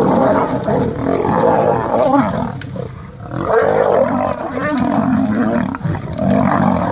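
Male lions fighting, calling loudly and almost continuously, with a short lull about three seconds in.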